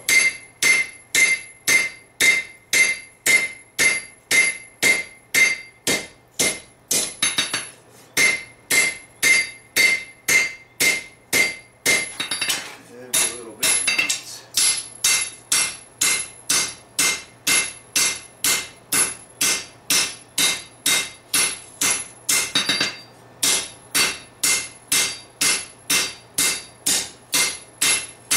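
Hand hammer blows on a red-hot steel sword blade against a chain-wrapped anvil, about two to three strikes a second, each with a short metallic ring, broken by a few brief pauses as the blade is moved. It is the drawing-out stage of forging: the blade is being thinned and stretched to gain length.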